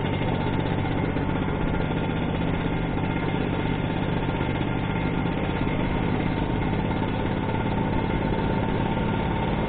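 Vespa scooter engine running steadily while the scooter is ridden slowly, with no change in pace through the stretch.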